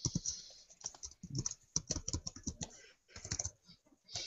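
Typing on a computer keyboard: quick, irregular key clicks that stop briefly near the end and then pick up again.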